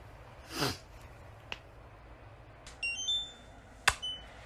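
LED light-therapy face mask beeping as it switches light mode: a quick run of short electronic tones at several pitches about three seconds in, then a sharp click and one more short beep near the end. A brief sound gliding down in pitch comes under a second in.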